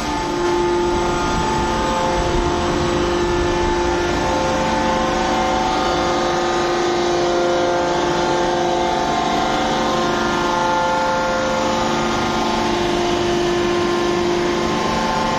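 Hydraulic pumps of a 1200-ton open-die forging press running: a steady hum with several steady whining tones and no impacts.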